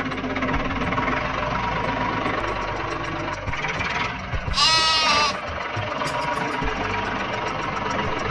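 A steady engine-like drone, with one short, wavering animal bleat about halfway through.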